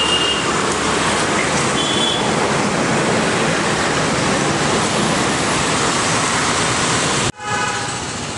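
Steady loud rushing of storm wind mixed with road traffic, with two brief vehicle-horn toots near the start. About seven seconds in the sound cuts off abruptly at an edit and resumes as a quieter rushing noise.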